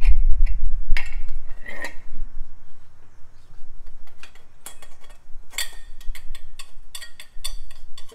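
Metal hand tools and parts clinking and knocking in sharp, irregular strikes while working on a Holley carburetor at the intake manifold, with a low rumble in the first couple of seconds.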